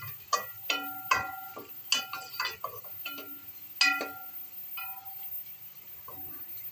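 A spoon knocking against the sides of an aluminium cooking pot while stirring sliced onions frying in oil. The pot rings after each irregular clank, about a dozen in all, with the loudest about four seconds in and fewer near the end.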